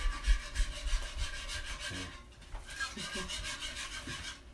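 A wire whisk scraping around a skillet of milk and Alfredo sauce mix in quick, rhythmic strokes, several a second, with a brief lull a little before halfway through.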